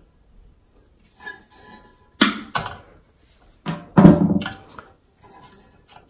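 Plastic refill hose and clip of a toilet fill valve being handled and fitted inside a ceramic toilet tank: two sharp clicks or knocks, about two seconds in and a louder one about four seconds in, among faint rustling.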